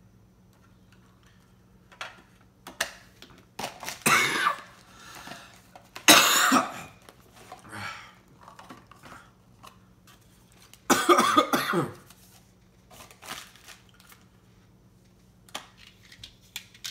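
A man coughing in three loud fits, with small clicks and rustles in between.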